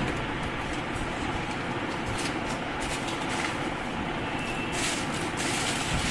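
Steady low background rumble, with a brief faint high tone a little past the middle.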